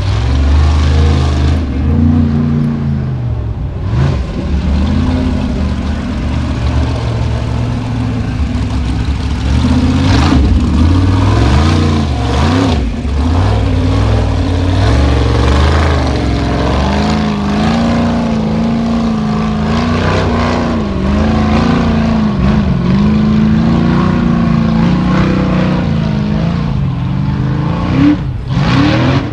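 Formula Offroad buggy engine revving hard under full throttle as it climbs a steep dirt slope, the pitch repeatedly rising and falling as the driver works the throttle.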